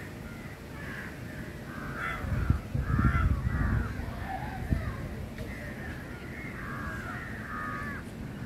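Birds calling over and over, short harsh calls overlapping one another, with a low rumble about two seconds in that lasts a second or so.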